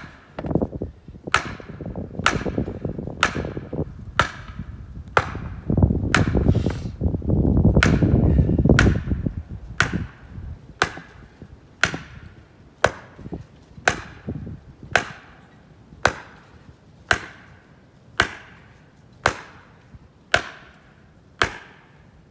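Hammer blows driving an oak stake into frozen ground: about one sharp strike a second, around twenty in a row. A louder low noise runs under the strikes for a few seconds near the middle.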